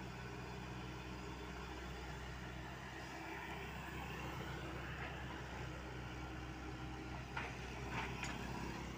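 Komatsu PC78UU mini excavator's diesel engine running steadily with a low hum as it digs, with three sharp knocks near the end.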